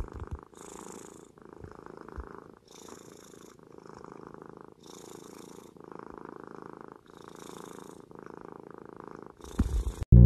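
Tortoiseshell kitten purring close to the microphone, a steady rumble that pulses with its breathing, in and out about every second. A few loud bumps just before the end.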